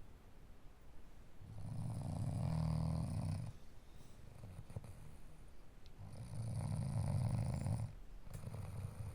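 A person snoring in sleep: two long snores about four and a half seconds apart, each lasting about two seconds, with quieter breathing between them.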